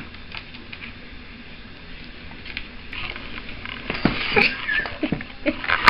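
Pet raccoon chewing on clementine segments: soft, wet clicks and smacks, sparse at first and busier over the last few seconds.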